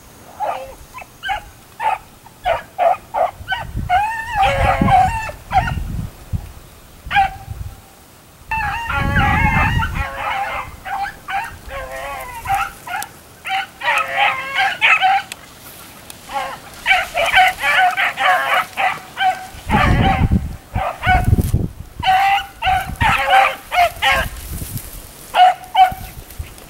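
Beagle baying on a cottontail's trail: runs of short barks and longer drawn-out bays, the sound of a hound giving tongue as it runs a rabbit. A few low rumbles on the microphone come and go beneath it.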